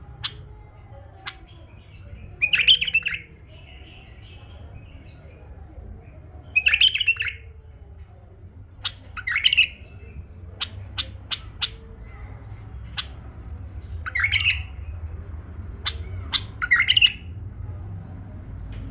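Tame male bulbul singing: about five short, loud phrases of rich warbling a few seconds apart, with sharp single call notes in between. A faint steady low hum lies beneath.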